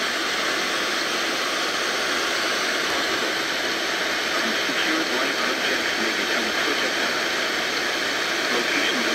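FM radio static: the steady hiss of a weak, distant station barely coming in, without any clear program audio.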